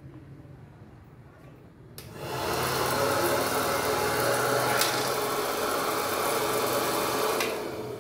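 Ikon hot-air popcorn maker switched on about two seconds in, its fan motor running with a steady rush of air and a low hum, then switched off shortly before the end. A single sharp click sounds about halfway through.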